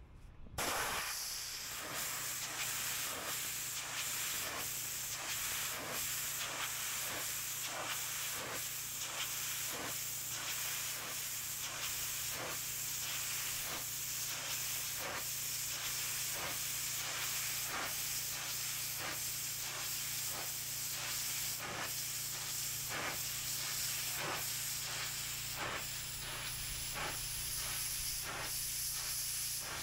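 Pressure washer spray hissing steadily against paving, with frequent short surges and a steady low hum underneath.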